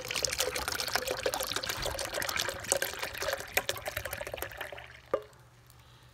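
Water poured from an emptied evaporated-milk can into a blender jar of evaporated milk, splashing and gurgling for nearly five seconds, then a single knock shortly after the pour stops.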